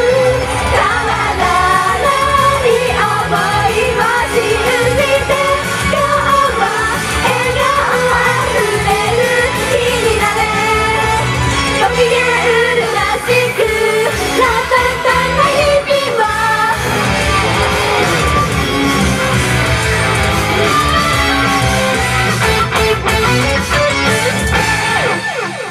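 Female idol group singing a pop song live into microphones over a loud backing track, the bass dropping out briefly about halfway through; the music stops at the very end.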